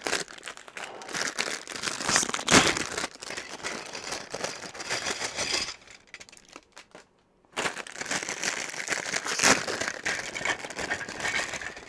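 Small plastic packets of building bricks crinkling and rustling as they are torn open and emptied, with a sharp crackle a few seconds in and a short lull about halfway through.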